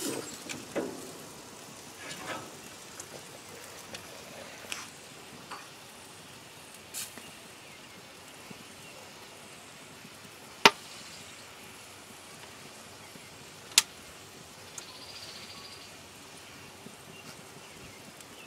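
Pork chops sizzling steadily on a hot grill grate, with a few soft knocks and two sharp clicks, one about eleven seconds in and one about three seconds later.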